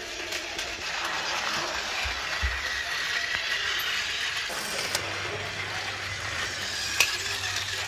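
Battery-powered Takara Tomy Plarail toy trains running on plastic track, a steady motor whir with a sharp click about seven seconds in.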